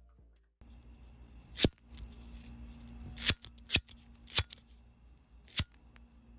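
Glitch-style logo sound effect: a steady low electric hum broken by five sharp clicks or snaps, the loudest about a second and a half in.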